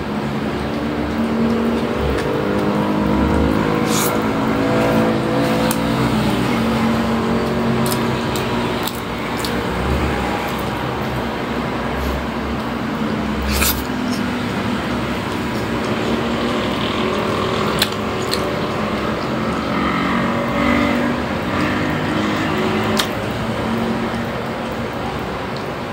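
A motor vehicle's engine running, its pitch slowly rising and falling over several seconds, with a few sharp clicks.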